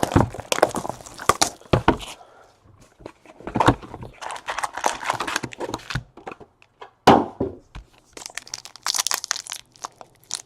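Trading card packaging being torn open and crinkled in hand-held bursts of crackling, with a sharp knock about two-thirds of the way through.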